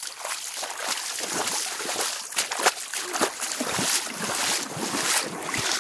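Flooding creek water rushing over and beside a flooded path: a steady, loud rush with frequent splashes. The creek is in flood from snowmelt and a thunderstorm.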